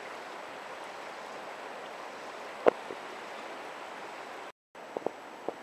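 Steady rush of flowing river water, with a sharp click a little under three seconds in and a few smaller clicks near the end.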